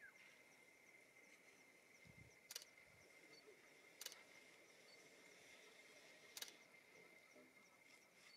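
Near silence: faint outdoor bush ambience with a steady high insect drone, broken by three short, sharp, faint clicks.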